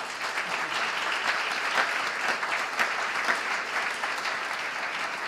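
Audience applauding: a dense, steady clapping at the close of a stage performance.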